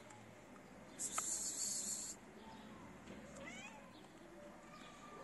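A kitten meowing in short, high, rising calls. About a second in there is a loud hiss lasting about a second, the loudest sound here.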